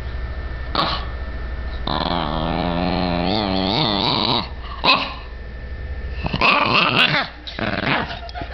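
Dogs play-fighting over a rope toy, a Boston terrier and a Chihuahua: a long, wavering growl lasting a couple of seconds, with short sharp barks about a second in, near the middle, and in a quick cluster toward the end.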